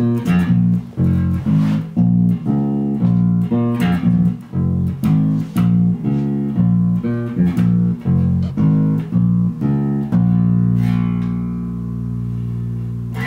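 Cort Precision electric bass playing a melody of plucked notes, about two a second. About ten seconds in it settles on one long note that rings on and slowly fades.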